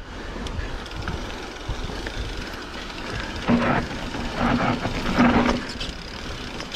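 E-mountain bike rattling and clattering down a steep, rough trail, with tyre noise over dirt and rocks. A few louder surges of rattle come about halfway through.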